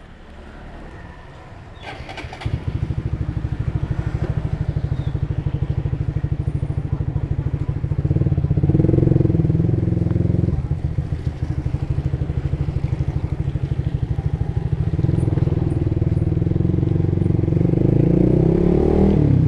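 Honda Supra GTR150's single-cylinder engine through an aftermarket Tridente exhaust, coming on with a click about two seconds in and then running with a steady exhaust pulse. It rises in revs around eight seconds in and again from about fifteen seconds.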